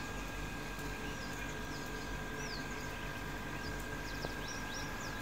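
Birds calling in a series of short, high, downward-sweeping chirps that come thicker near the end, over a steady low background hum.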